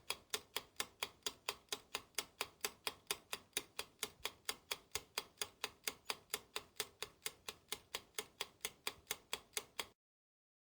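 Clock-ticking sound effect: sharp, evenly spaced ticks about four to five a second, cutting off suddenly near the end. It works as a countdown timer for answering a quiz question.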